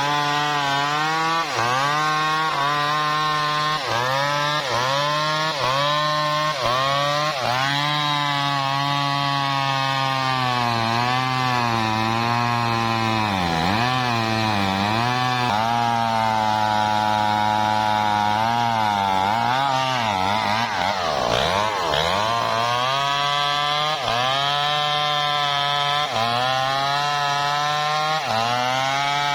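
Two-stroke chainsaw running at high revs while cutting wood; the engine pitch sags and recovers over and over as the chain bites, with a deeper drop about two-thirds of the way through.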